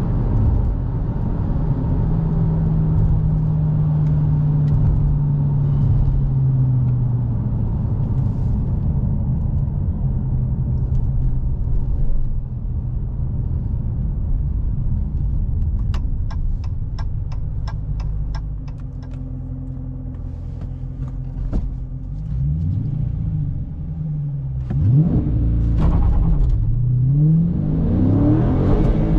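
Dodge Challenger Scat Pack's 392 HEMI V8 heard from inside the cabin, rumbling at a steady cruise and then easing off. Midway there is a ticking at about four a second for a few seconds, like the turn signal. Near the end the engine climbs in pitch again and again as the car accelerates hard through the gears.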